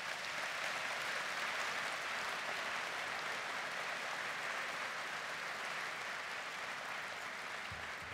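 A large audience applauding, a dense, steady clapping that eases off slightly near the end.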